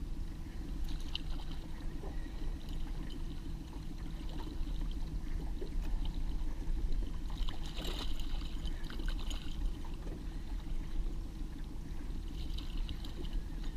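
Small boat motor running steadily under a hooked cutthroat trout splashing at the surface beside the boat as it is played to the net. The splashing comes in bursts, strongest about eight seconds in and again near the end.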